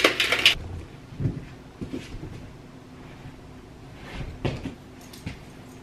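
A plastic shaker bottle shaken hard, a fast rattle that stops about half a second in. Then a few soft knocks and rustles of someone moving about a room, the clearest about four and a half seconds in.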